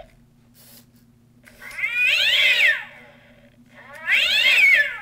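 Gemmy Fraidy Cat animated Halloween prop playing recorded cat yowls, twice: each call rises and then falls in pitch and lasts about a second, the first about one and a half seconds in and the second near the end.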